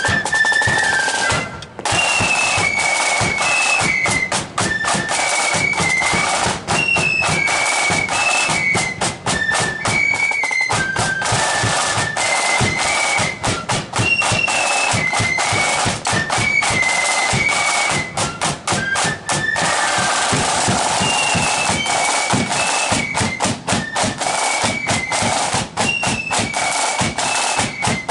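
Marching flute band playing a tune in unison on flutes, with side drums beating a fast rhythm and a bass drum underneath; a brief break in the music about a second and a half in.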